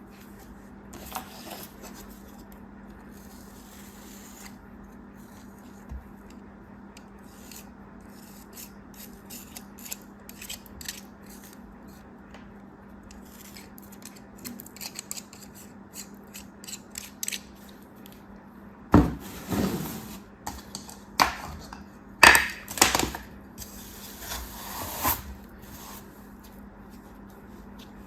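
Packaging being handled and opened by hand: scattered crinkles, clicks and light taps, with a burst of louder rustling and knocks about two thirds of the way through, over a faint steady hum.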